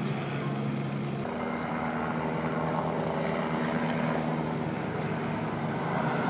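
UH-72 Lakota twin-turbine helicopter flying: a steady engine-and-rotor drone whose pitch shifts about a second in.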